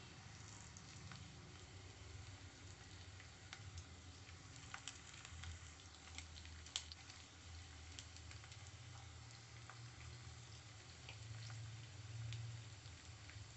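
Marinated carrot slices frying in a little oil in a nonstick pan on a low flame: a faint sizzle with scattered small pops and crackles, the sharpest about seven seconds in.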